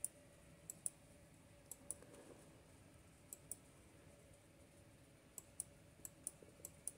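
Near silence broken by faint, sharp clicks, mostly in pairs a fraction of a second apart, about seven pairs in all.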